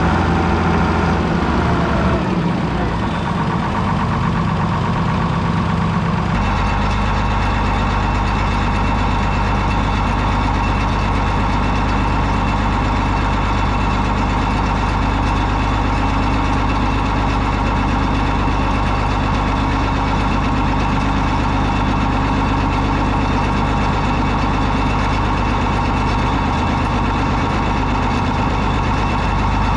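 Deutz D130 06 tractor's air-cooled six-cylinder diesel running; its note changes in the first few seconds, drops about a second in and shifts again about six seconds in, then holds steady.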